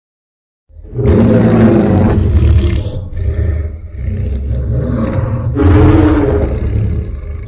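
Godzilla-style monster roar sound effect: after a brief silence, a loud, long growling roar with a deep rumble beneath, swelling again into a second strong roar about five and a half seconds in.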